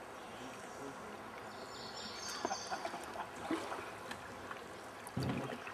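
Quiet river water around a canoe: lapping and trickling water with a few light knocks, and a short low thump about five seconds in.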